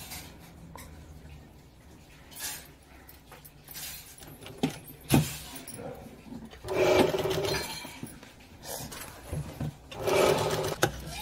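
Sewing machine stitching in two short runs, with metal clicks and rattles from the machine and fabric being handled in between.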